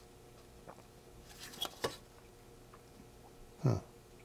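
Faint handling noise from a small circuit board being turned over in the hands: a few light clicks and rustles about a second and a half in. A brief low murmur from a man's voice comes near the end.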